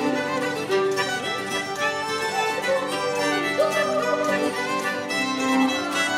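Background music: a fiddle playing an Irish reel.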